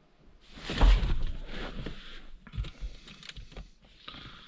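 A run of irregular knocks and rustles from things being handled, the loudest a dull thud about a second in.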